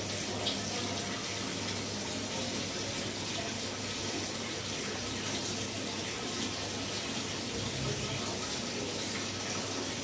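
Multi-spindle textile thread machine running: a steady whirring hiss over a low hum, with a single faint tick about half a second in.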